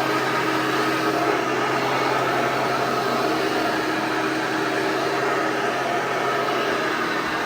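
Hoover Elite 600 upright vacuum cleaner (1988, Model U4473) running steadily: an even motor hum under a constant rush of air.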